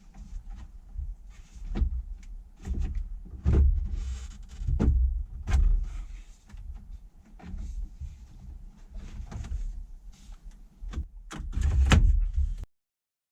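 Irregular knocks, thumps and handling noises, something being bumped and moved about, with a low rumble under them. The loudest thump comes about 12 seconds in, and the sound cuts off suddenly just after it.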